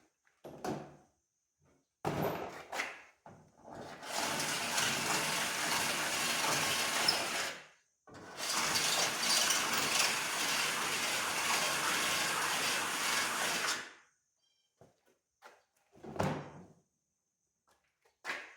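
Power drill running in two long bursts, one of about four seconds and one of about six, opening up slightly undersized mounting holes in sheet metal. A few short knocks and handling noises come before and after the bursts.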